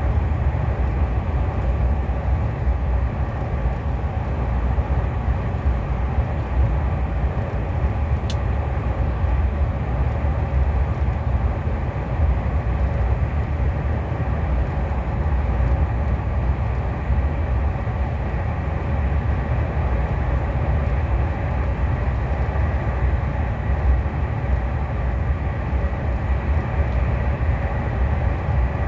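KTX high-speed train running: a steady low rumble with a rushing noise above it, heard from inside the passenger car.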